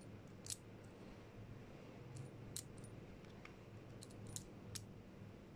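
Light metallic clicks of steel disc-spring washers clinking against each other as they are slid by hand onto the brass piston stem of a PCP air rifle regulator, in pairs facing alternate ways to set the regulated pressure. About half a dozen sharp, separate ticks over a faint steady hum.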